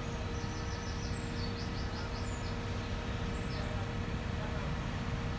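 Heavy diesel engine running steadily with a low drone and a faint steady hum above it; a small bird chirps in quick series of high notes over the first few seconds.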